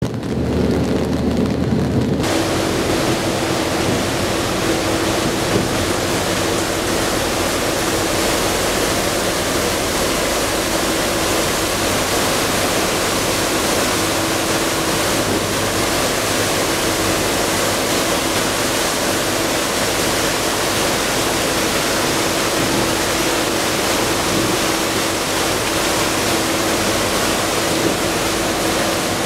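Steady rush of wind and churning wake water behind a moving tour boat, with a steady engine hum running under it from about two seconds in.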